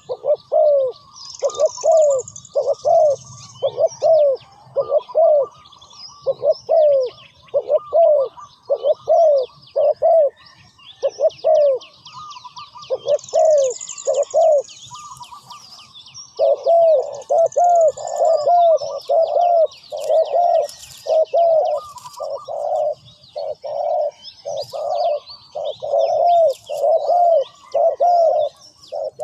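Spotted dove cooing: a long run of short, falling coo notes, a little over one a second, with a few seconds' break about twelve seconds in. Smaller birds chirp and twitter higher up throughout.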